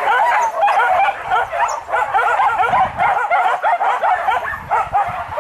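A pack of hunting dogs yelping in a dense, overlapping chorus of short, rising-and-falling yips, giving tongue as they run in chase of a wild boar.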